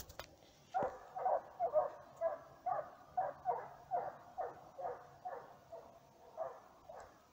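Russian hounds giving voice on a hare's trail: a fast, even run of barks, about three a second, starting about a second in.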